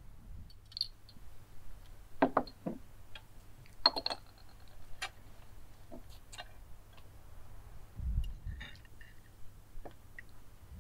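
Metal spoon and fork clinking and scraping against a china plate and a ceramic sauce pot, a handful of sharp clicks scattered through, the loudest about two and four seconds in.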